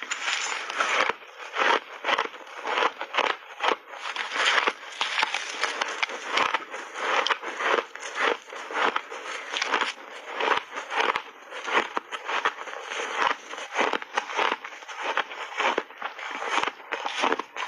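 Refrozen ice being bitten and chewed: many quick, irregular crunches and crackles in close succession.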